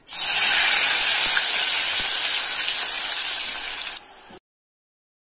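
Batter-coated soya chunks dropped into hot oil, sizzling hard the moment they go in and frying steadily. The sizzle cuts off suddenly after about four seconds.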